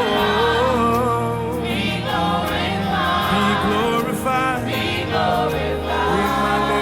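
Live gospel worship music: a choir and singers holding sung notes over a band with a steady bass.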